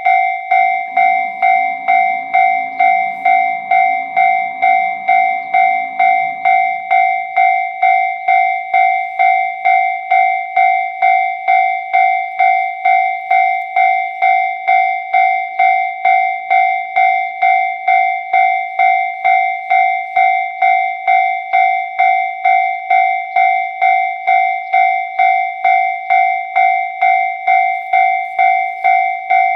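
Japanese railway level-crossing alarm bell ringing in an even, unbroken rhythm of about two clear ding strikes a second.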